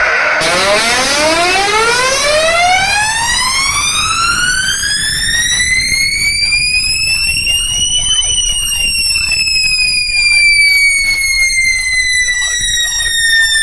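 A synthesized siren-like sweep tone played through a large DJ sound system during a sound check. Starting about half a second in, it rises smoothly in pitch for about eight seconds, then slides slowly back down.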